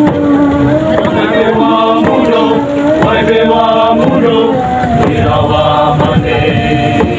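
A group of voices chanting and singing in held notes, several pitches at once, with a sharp beat underneath about once a second.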